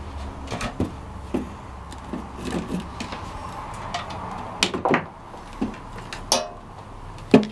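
Handling noise: a handful of sharp clicks and knocks spread over several seconds as cables and a vacuum cleaner's plug are moved around, the loudest knock near the end.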